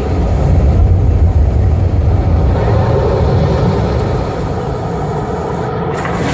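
A loud, steady low rumble like heavy engines, played over the display's loudspeakers.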